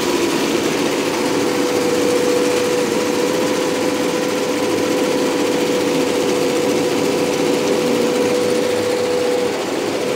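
BAI multi-needle commercial embroidery machines running, stitching lettering at speed: a steady fast mechanical stitching noise with a constant hum under it.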